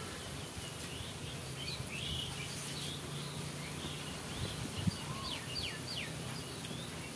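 Small birds chirping in short, quick calls, with a fast run of sharp chirps about five and a half seconds in, over a steady low hum. A single short tap sounds near five seconds in.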